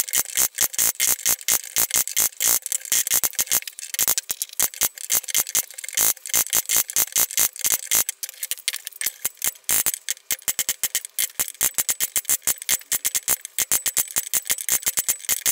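A mallet striking a chisel chopping into wenge, in rapid sharp strikes several a second. The chisel is hand-cutting an angled through mortise for a wedge.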